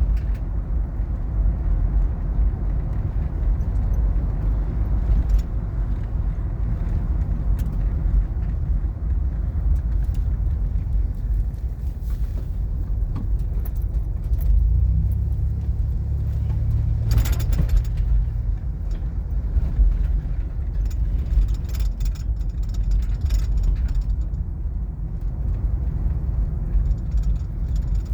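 Steady road and engine rumble heard from inside a moving car, with a brief louder rush of noise about two-thirds of the way through.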